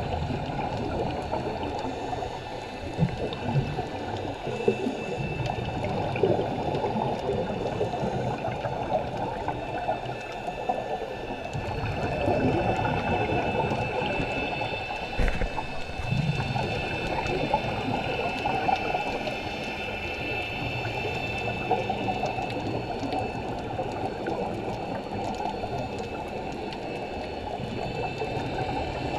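Underwater sound through a camera housing: a steady muffled bubbling rush from scuba divers' exhaled regulator bubbles, with a faint steady high whine and a few short knocks.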